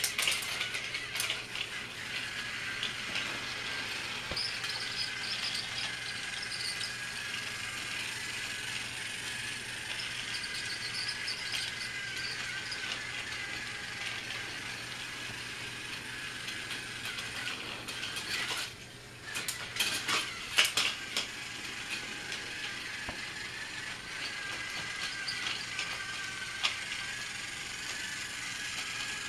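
Battery-powered toy Thomas train running on plastic track: a steady whirring, rattling gear-motor sound, with a few sharp clicks about two-thirds of the way through.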